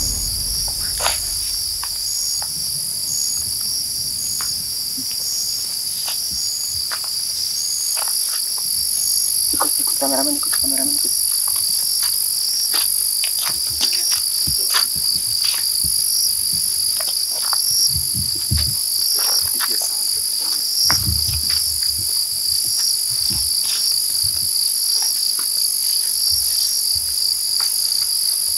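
Night insects, crickets, trilling steadily in a high, continuous chorus, with another insect chirping in short pulses about once a second. Scattered faint clicks and rustles, and a couple of brief low rumbles later on.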